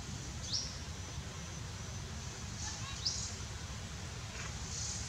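Two short, high bird chirps, each falling quickly in pitch, about two and a half seconds apart. They sit over a steady low rumble and a faint high hiss.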